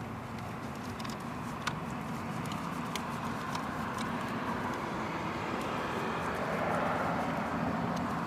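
Steady vehicle rumble that swells a little toward the end, with a few faint light clicks.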